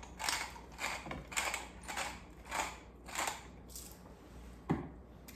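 Hand-twisted pepper mill grinding pepper onto raw chicken thighs in repeated short twists, about two a second, then a knock near the end.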